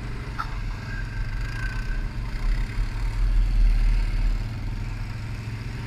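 Can-Am ATV engine running at low revs, steady, getting a little louder in the middle.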